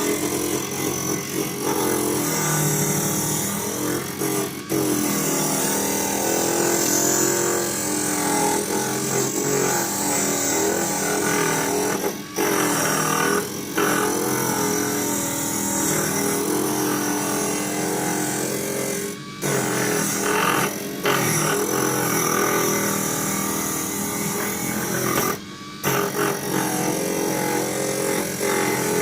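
Parkside PTSG 140 A1 disc sander running steadily while a piece of pine is pressed against the spinning sanding disc, with a few brief drops in the sound along the way. The motor does not bog down under the load.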